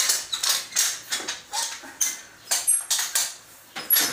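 A floor mop pushed back and forth on the floor in quick strokes, several swishes a second, with a few brief high squeaks.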